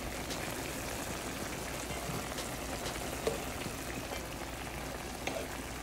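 Curry sauce with shrimp and vegetables boiling in a skillet: a steady bubbling sizzle with occasional small pops.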